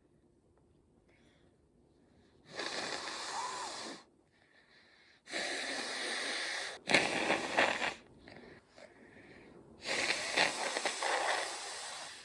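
A person sneezing and gasping, set off by a twisted paper string (koyori) tickling the inside of the nose: four loud, breathy bursts with short quiet gaps, the sharpest and loudest breaking out suddenly about seven seconds in.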